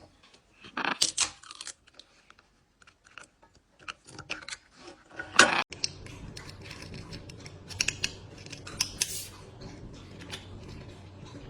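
Irregular series of sharp clicks and crunchy snips, with louder ones about a second in and about five seconds in; a low steady hum comes in about halfway.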